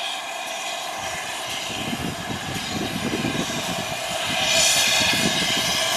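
Steam locomotive hauling a train of carriages, approaching at low speed with a steady low rumble that grows louder about four and a half seconds in.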